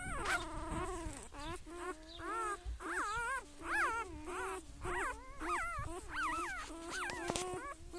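A pet making a string of short whining calls, each rising and then falling in pitch, about two a second, over a faint steady lower hum.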